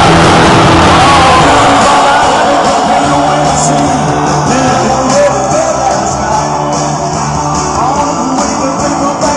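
Music with singing played loudly through homemade speaker cabinets with subwoofers, as a test of the finished boxes.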